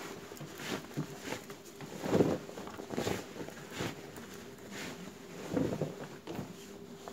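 Denim jeans being handled and slid across a tabletop: a series of rustles and soft thumps of heavy cloth, the loudest a little over two seconds in.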